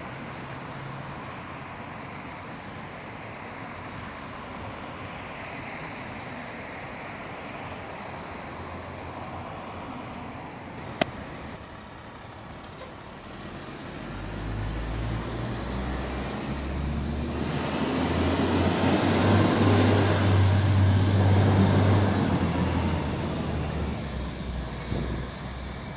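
A 2002 Pierce Dash tiller ladder truck with a Detroit Diesel Series 60 engine drives past amid city traffic. Its diesel grows louder from about halfway, peaks near three quarters of the way through with a high whine that rises, holds and then falls, and fades near the end. A single sharp click sounds a little before halfway.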